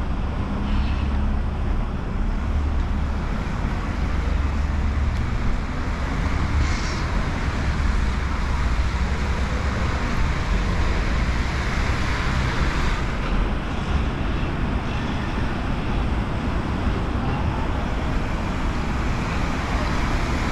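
Wind buffeting the microphone in a low, uneven rumble over a steady rush of road traffic on a wet road.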